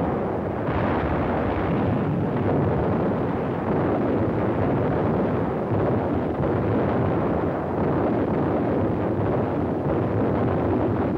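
Artillery shellfire and shell explosions merging into one dense, unbroken din of a heavy bombardment, with no single blast standing out.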